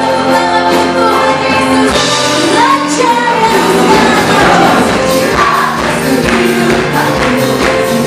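Gospel worship song: a group of women singing together over band accompaniment with a steady percussive beat.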